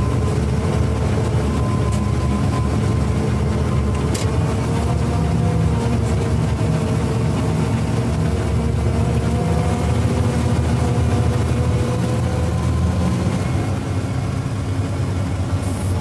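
Combine harvester's diesel engine running steadily while the machine drives along in second gear.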